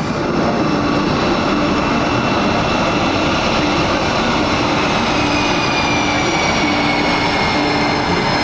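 EA-18G Growler's twin General Electric F414 turbofan jet engines running loud and steady, with a high whine that slowly falls in pitch.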